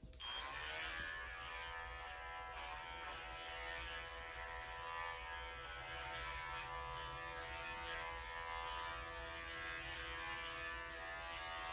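Electric dog grooming clippers fitted with a #30 blade, used to trim the hair on a dog's foot pads. The clippers switch on at the start, spin up within the first second, then run steadily.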